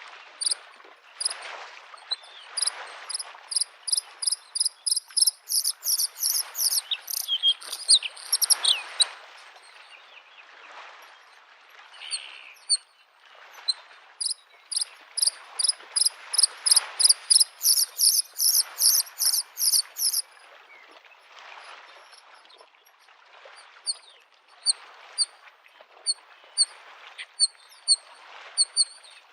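Bluethroat singing in fast runs of high, sharply repeated notes: two long runs, then scattered single notes near the end. Underneath, small waves lap at a lake shore in soft, rising and falling swells.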